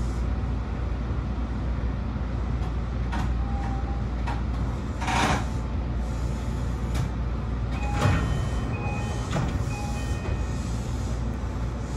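BEC819 series DENCHA battery-electric train running along the track: a steady low rumble with occasional sharp clacks, the loudest about five seconds in, and a few brief high tones about three seconds in and again from about eight seconds in.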